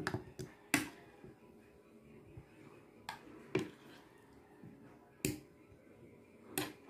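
Metal spoon clinking against ceramic plates while food is scooped and served: a few sharp, separate clinks at irregular intervals, a second or more apart.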